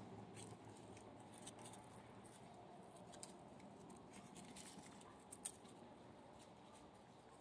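Near silence with faint, scattered small clicks and rustles, and one sharper click about five and a half seconds in.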